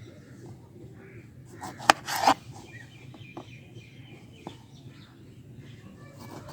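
A knife cutting lemons in half, with a sharp knock of the blade about two seconds in and a louder cutting sound right after it.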